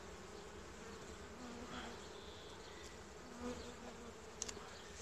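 Honey bees of a Buckfast colony buzzing around an opened hive, a steady low hum, with a couple of light clicks about four and a half seconds in.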